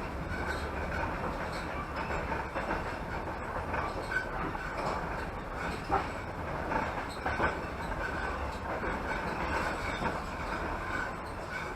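Passenger train running along the line, heard from inside the carriage: a steady rumble of wheels on rails, with a few sharp clacks from the wheels over rail joints.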